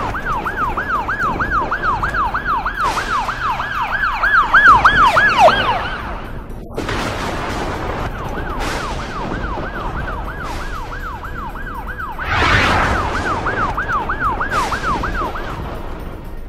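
Cartoon ambulance siren in a fast yelp, rising and falling about four times a second. It swells and its last sweeps drop in pitch before it breaks off about six seconds in, then it starts again about two seconds later. A noisy rush comes about twelve seconds in.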